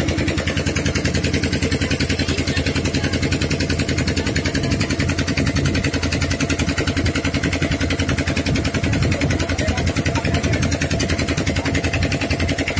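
Small boat's engine running steadily under way with a fast, even pulse, and water splashing along the hull.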